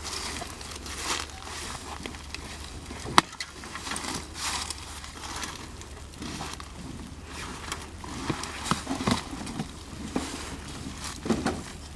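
A large planting container of sweet potatoes being tipped over and its soil dumped out: irregular scraping, rustling and crunching, with one sharp knock about three seconds in.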